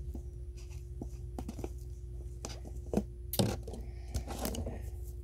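Light clicks and rustling, with two sharper clicks about three seconds in, over a steady low hum.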